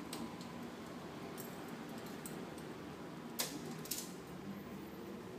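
Small bell on a cat's collar jingling as the cat moves, with two brief clinks about three and a half and four seconds in, over a steady low hum.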